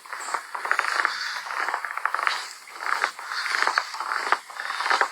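Footsteps crunching on frozen, ice-crusted snow, a steady run of crunchy steps.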